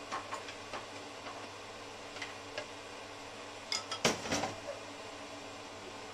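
Scattered clinks and knocks of cookware and kitchen utensils, a few short taps early on and a louder cluster about four seconds in, over a steady low hum.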